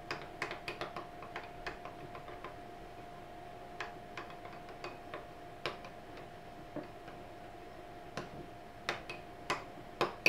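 A metal spoon stirring glue, shaving cream and food colouring in a glass bowl, clinking against the glass in irregular clicks, a few louder ones near the end. A faint steady hum runs underneath.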